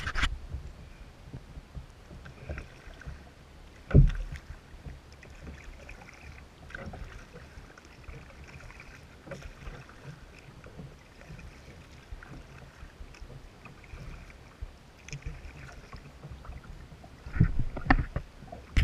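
Sea kayak being paddled over calm water: soft paddle splashes and water lapping at the hull. There is one sharp knock about four seconds in, and a flurry of louder thumps near the end.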